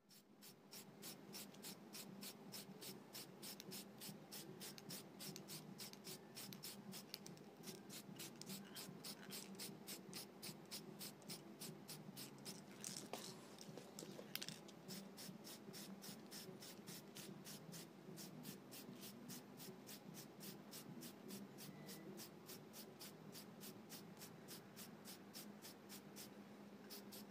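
Aerosol spray-paint can hissing in two short bursts about halfway through, over a steady fast ticking of about four ticks a second and a faint hum.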